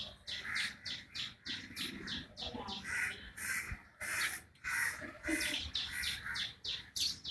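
A bird chirping over and over, short high calls about two a second, each dropping quickly in pitch.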